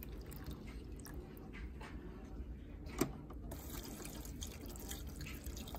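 Water pouring from a plastic jug into a plastic seedling tray, a faint steady trickle and splash, with one sharp click about three seconds in.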